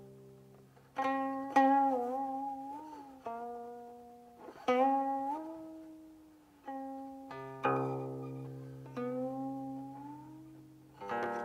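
Solo guqin: sparse plucked notes and two-note chords, each ringing out and fading, about eight plucks in all. Several notes bend and slide upward or waver as the left hand glides along the string after the pluck.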